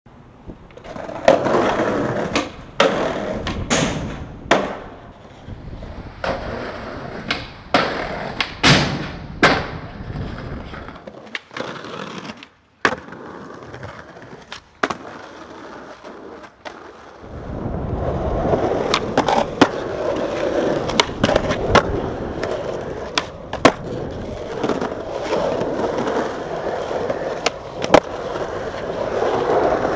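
Skateboard wheels rolling on concrete, broken by many sharp clacks of the board popping and landing. The rolling drops away for a few seconds in the middle, then comes back loud and steady.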